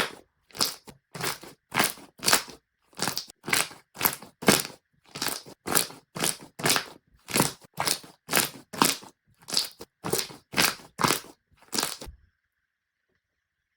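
Slime being squeezed and pressed by hand in regular strokes, about two a second, which stop about twelve seconds in.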